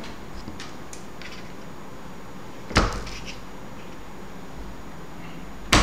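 Hand cutters snipping through the solder-tinned ends of copper wires: two sharp clicks about three seconds apart, the second near the end, with a few faint ticks between.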